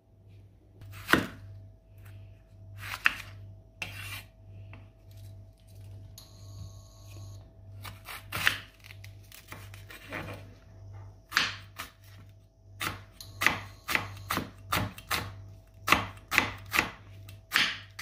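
Kitchen knife slicing a red onion on a wooden cutting board, each cut ending in a sharp knock of the blade on the wood. The cuts come a few seconds apart at first, then quicker and closer together near the end.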